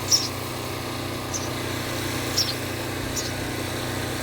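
Nestling birds giving short, high-pitched begging chirps, four in all, about one a second, over a steady motor hum.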